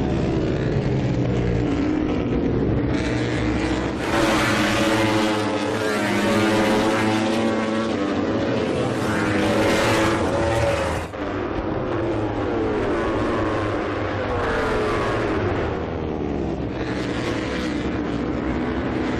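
MotoGP race bikes' 1000 cc four-cylinder engines running at high revs, the pitch repeatedly climbing and dropping as riders accelerate and shift through the gears; there is a brief dip about 11 seconds in.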